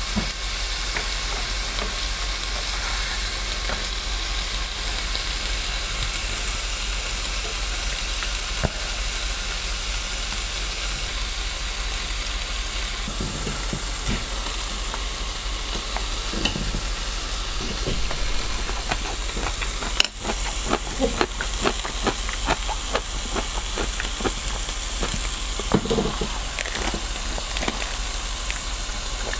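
Meat sizzling on a Korean barbecue grill pan, a steady frying hiss. From about halfway through, small clicks and crackles of food being handled come in over it, growing busier near the end.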